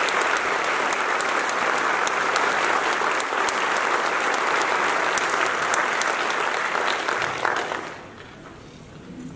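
Audience applauding, a dense steady clapping that dies away about eight seconds in.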